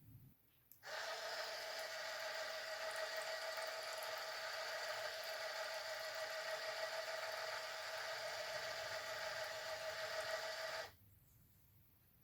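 Small electric pump on an Arduino-controlled soju dispenser running for about ten seconds with a steady whir, switching on and off abruptly.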